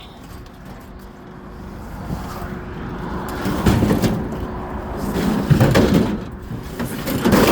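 Forklift engine running while scrap air-conditioner units are shifted on it, metal scraping and clattering. The scraping grows louder from about two seconds in, with loud clanking spells around the middle and again near the end.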